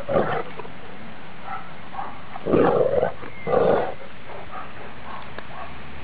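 Great Danes play-growling: three short rough growls, the loudest a little over halfway through.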